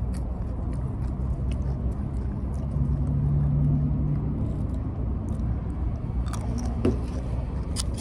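Steady low rumble of a car heard from inside the cabin, with a low engine note that swells for about a second midway and a few light clicks near the end.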